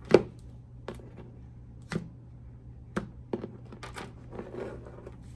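A tarot deck being shuffled by hand: a run of sharp card slaps and snaps about once a second, the loudest right at the start and several close together a little past the middle.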